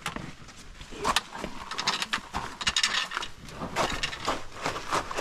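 Hiking boots crunching on a rocky, gravelly trail, an uneven run of footsteps with a few sharper scuffs.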